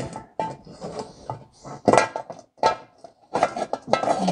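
Dented sheet-metal air cleaner cover from a Ford tractor clanking and knocking on a workbench as it is handled and worked to straighten it. The metallic clanks come irregularly, with a short ring after each, and bunch together near the end.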